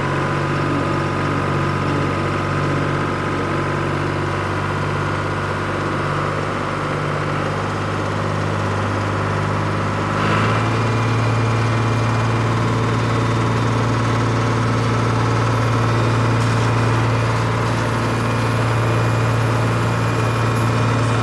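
Vintage tractor engines running steadily at low speed as the tractors drive by. About halfway through, the engine note changes abruptly to a different, slightly louder tone.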